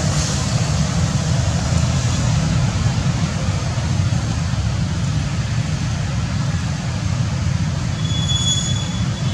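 Steady, loud rumbling noise with an even hiss above it. A faint high steady tone comes in about eight seconds in.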